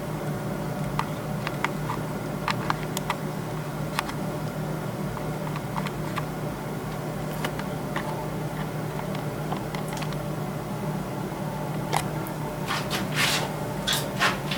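Light clicks and taps of cleaning tools on a Honda CB400 aluminium cylinder head, with a few short brush-scrubbing strokes near the end, over a steady low hum.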